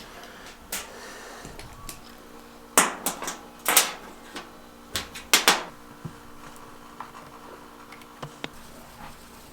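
Sharp little metallic clicks and taps from handling a miniature pinfire pistol: a scattered series of about a dozen, loudest in a cluster from about three to six seconds in.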